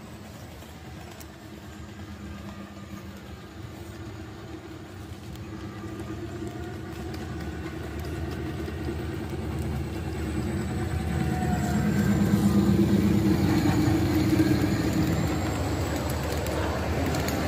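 Ride-on miniature train with a red diesel-style locomotive running toward and past, its steady motor hum growing louder, loudest about twelve to fifteen seconds in, then easing off near the end.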